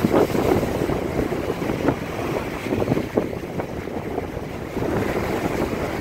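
Surf breaking and washing up the beach in rough, choppy sea, with strong gusty wind buffeting the microphone in a low, uneven rumble.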